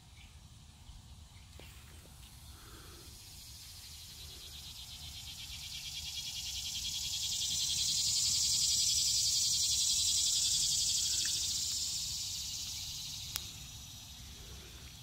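Cicada buzzing, swelling to a peak midway and then fading away. There is one sharp click near the end.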